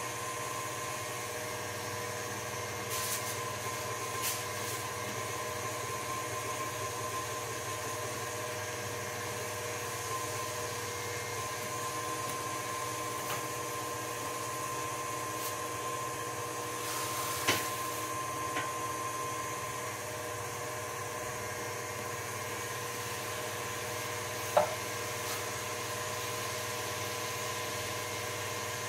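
Stand mixer's motor running steadily, driving a pasta cutter attachment as a sheet of dough is fed through and cut into noodles. A few sharp clicks and taps break in, the loudest about two-thirds and five-sixths of the way through.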